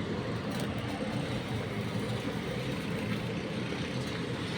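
An engine running steadily at idle, a constant hum with no change in speed.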